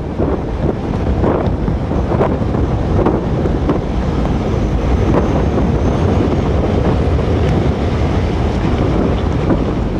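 Hurricane-force wind from Hurricane Ike buffeting the microphone: loud, steady wind noise with gusts that keep rising and falling.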